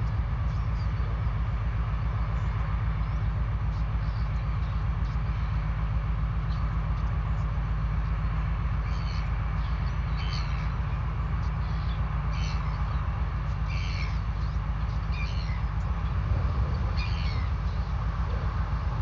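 Low, steady, evenly pulsing drone of a large container ship's engine passing close by. From about halfway through, half a dozen short high bird chirps come over it.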